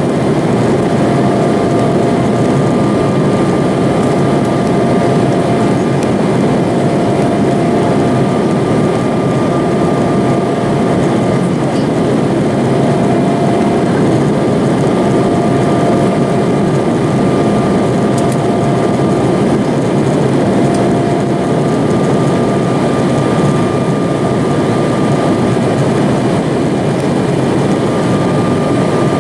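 Steady cabin noise of an Embraer E-175 in its climb after takeoff: the rush of its two GE CF34 turbofan engines and the airflow, heard from a window seat over the wing. Two faint steady whining tones fade in and out over the noise.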